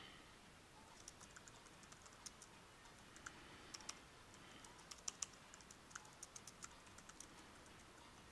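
Computer keyboard typing: a run of faint, quick, irregular keystrokes starting about a second in.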